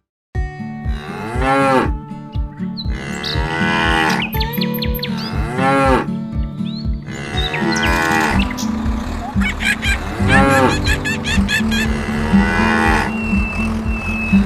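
Cartoon cows mooing again and again, a long rise-and-fall call about every two seconds, over background music with a steady low beat.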